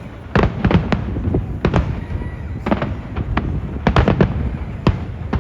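Fireworks display: a rapid run of sharp bangs and cracks, several a second, over a rumbling background of further explosions.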